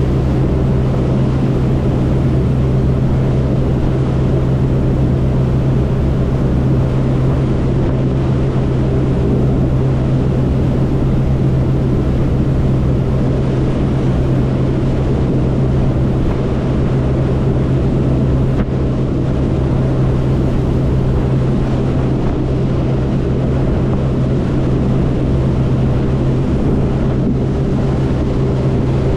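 Twin MAN V8 1200 hp marine diesel engines driving Marine Jet Power 350X waterjets at high speed: a loud, steady drone at one unchanging pitch, with the rush of the churning wake over it.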